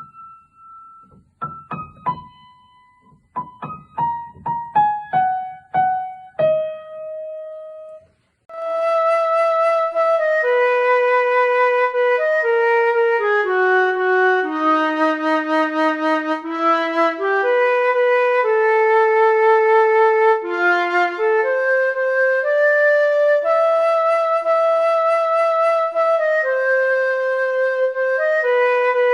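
Music: a piano plays a short opening of single struck notes stepping downward. After a brief pause, about eight seconds in, a slow melody of held notes in several voices begins, with a flute-like tone over the piano.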